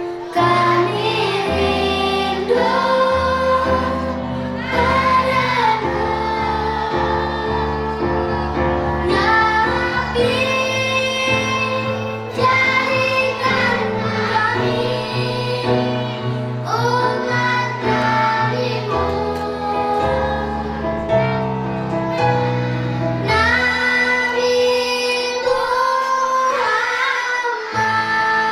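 Children's choir singing a devotional song together, with instrumental accompaniment carrying sustained bass notes underneath.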